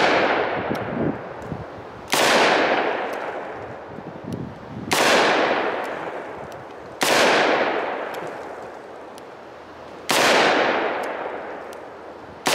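Smith & Wesson 627 Performance Center 8-shot .357 Magnum revolver firing four single shots, about two to three seconds apart. Each shot is a sharp crack followed by a long echo fading over about two seconds.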